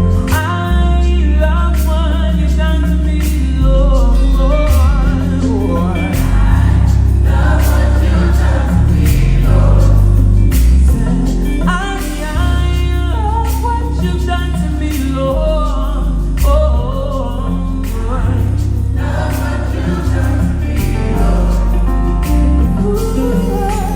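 Gospel choir singing with a live band. An electric bass, a Fender Jazz, holds long low notes that change every second or two underneath, with frequent sharp percussive hits.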